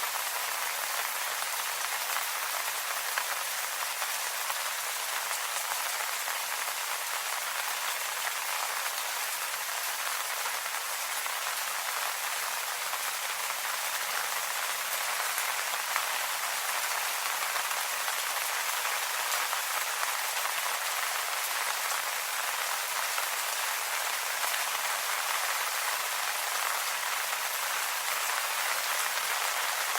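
Steady rain falling on leaves, a dense even patter of many small drops with no letup.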